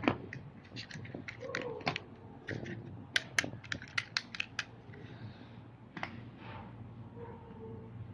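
Small plastic toy trucks being handled, giving a run of light, irregular clicks and taps, busiest around the middle.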